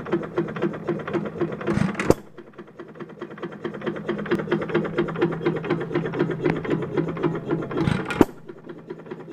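2.5 HP United hit-and-miss engine running through a newly fitted muffler: a steady clacking of the valve gear and spinning flywheels at about three beats a second, with a sharp firing bang twice, about six seconds apart, as it coasts between power strokes.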